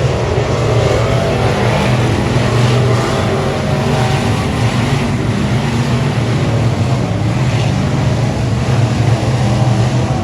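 Dirt-track race car engine running hard at speed, loud and steady with a deep, even drone.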